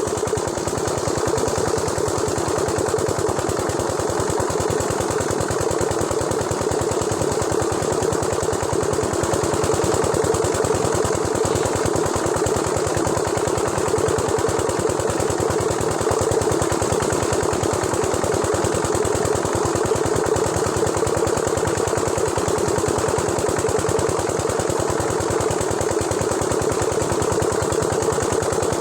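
An engine running steadily without a break, with a fast, even pulsing.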